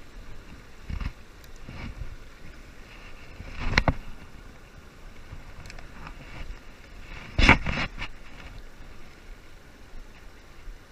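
Steady rush of river water and wind on the microphone. The wash is broken twice by short, loud noisy bursts, about four seconds in and again about seven and a half seconds in, with fainter ones near the start.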